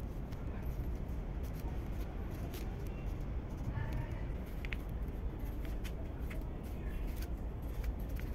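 Pencil scratching on notebook paper in short, irregular strokes, over a steady low rumble.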